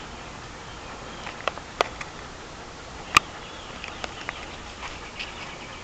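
Quiet outdoor background with faint high bird chirps and a few sharp clicks, the loudest about three seconds in.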